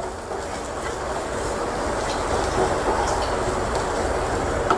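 Onion-and-spice masala sizzling in a hot nonstick frying pan after a splash of water is added, with a wooden spatula scraping and stirring through it. The sizzle swells just after the start and then holds steady.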